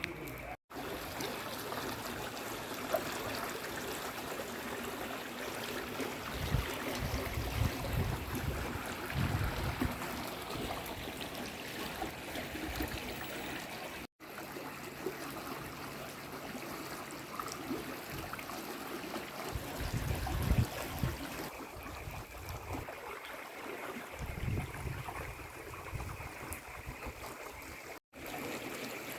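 Spring water running and trickling over rocks in a steady rush, with low rumbles on the microphone now and then. The sound breaks off for an instant twice.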